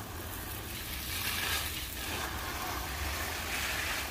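Water spraying onto potted plants as they are watered, a hiss that swells and fades, over a low steady rumble.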